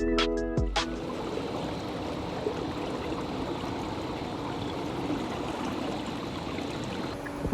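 Steady rush of running water. Background music cuts off less than a second in.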